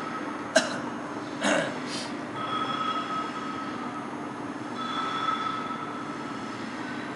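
EPS foam CNC cutting machine running: a steady mechanical hum with a high whine that comes and goes as its axes move. A sharp click about half a second in, and a short knock a second later.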